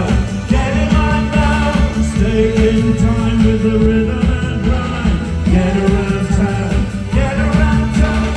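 Live synth-pop band playing with a lead singer, over a driving bass and electronic beat.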